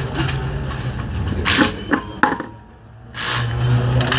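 Mechanics working on a rally car: clicks, knocks and a few short rushing bursts from tools over a steady low hum. The sound drops away briefly a little past the middle, then the hum comes back louder.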